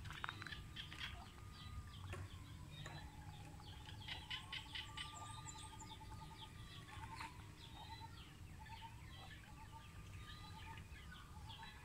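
Faint birdsong: many quick high chirps, and a long rising-then-falling whistle that comes back three times, about every four to five seconds.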